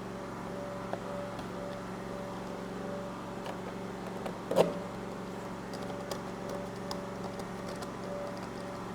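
Light clicks and one louder knock about halfway through as laptop parts are handled and fitted back together, over a steady low hum.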